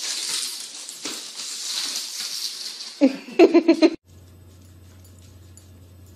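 A dog yapping, a quick run of about five short, loud barks about three seconds in over a steady hissing background. The sound then cuts off abruptly to a quiet low hum.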